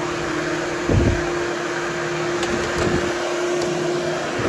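Hoover Hushtone vacuum running steadily with a constant hum while grooming berber carpet, with a low thump about a second in and a smaller one near three seconds.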